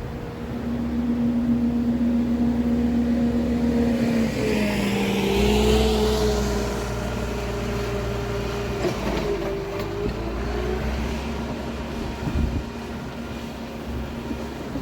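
A motor vehicle engine running steadily; about four seconds in its pitch shifts down and it gets louder, then settles back.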